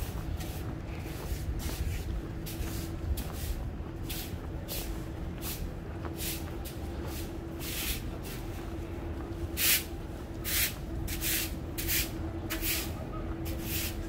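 Footsteps in snow on a street, about two steps a second, louder for a few steps near the end. A steady hum and low traffic rumble run underneath.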